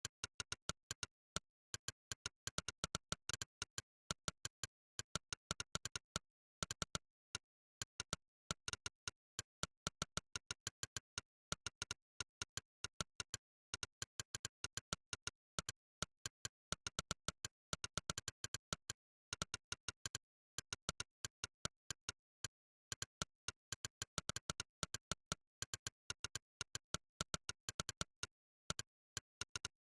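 Monkeytype's "click" keypress sound effect: one short, sharp synthetic click for every keystroke, coming in fast, uneven runs of typing with brief pauses between words and phrases.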